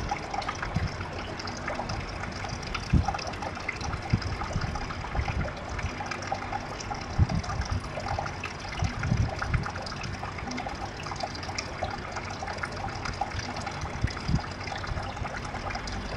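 Water trickling and splashing steadily, with a few low thumps here and there.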